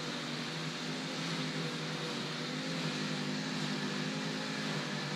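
Steady machine hum with a soft, even hiss, like a fan running.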